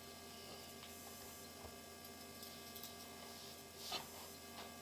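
Steady low electrical hum, with a faint tap about four seconds in.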